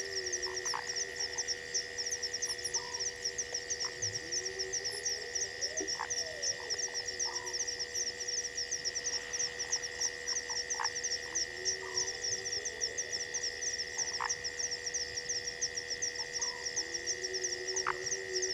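Night chorus of frogs and insects at a waterhole: a fast, continuous high chirping and steady trilling tones, with frogs giving scattered sharp clicks and slow rising-and-falling croaks every few seconds.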